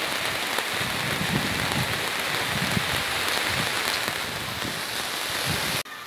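Heavy rain falling on clear plastic sheeting overhead, a steady dense patter. The level drops suddenly just before the end.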